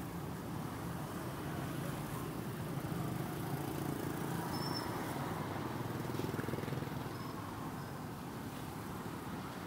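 Steady hum of nearby motor traffic, with a few faint, short high chirps about halfway through and again later.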